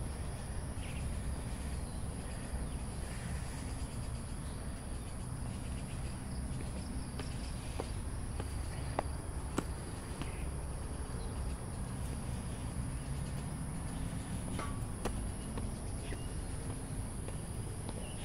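Insects making a steady, high-pitched drone, with a few scattered footsteps and clicks over a low background rumble.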